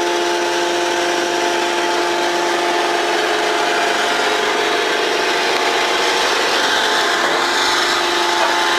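Coal-mine roadheader running: a loud, steady machine hum with several held tones under a dense hiss.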